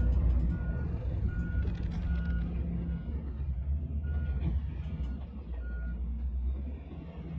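Bulldozer's reversing alarm beeping at one steady pitch, about four beeps every three seconds, pausing for a second around the middle and stopping near the end. Under it the machine's diesel engine runs with a low rumble, with a few clanks near the start.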